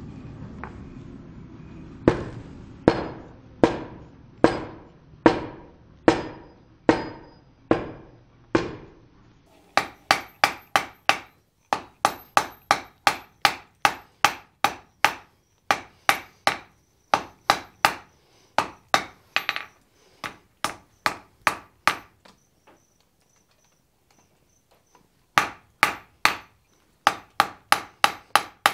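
Hand hammer striking hot steel on an anvil, forging a scarf for a forge weld: a steady run of ringing blows, slower at first, then quicker at about two a second, with a short pause before the last few. A brief rushing noise from the coal forge comes just before the first blows.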